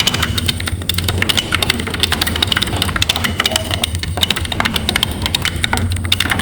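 AI-generated weird noise from Stable Audio Open: a dense, fast run of clicks and crackles over a steady low hum.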